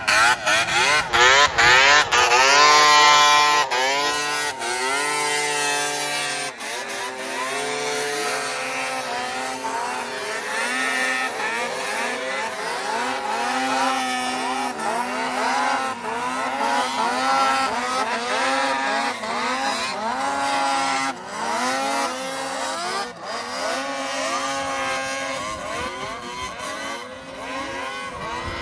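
Several vintage two-stroke snowmobile engines running and revving at different pitches. Their pitch keeps rising and falling as the throttles open and close, loudest in the first few seconds.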